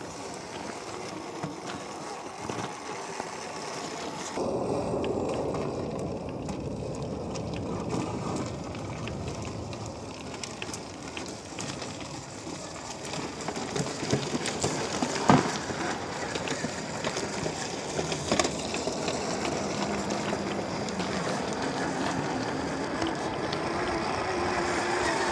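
Traxxas TRX4 scale RC crawlers driving over rough ground, electric motors and drivetrains running with tyres working over dirt and rock. The sound grows louder about four seconds in, and there is a sharp knock about fifteen seconds in.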